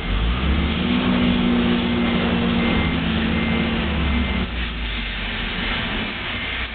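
Propane-fuelled Toyota forklift's engine running under load as the truck drives off, strongest for the first four seconds or so and then easing off.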